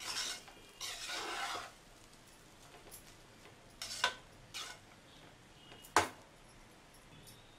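A steel spatula stirring and scraping fried rice around a pot, two rasping strokes in the first two seconds. It then gives two sharp clicks against the pot, about four and six seconds in.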